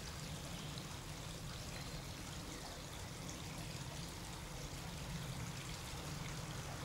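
Steady background hiss with a low rumble underneath, unchanging throughout, with no distinct sound events.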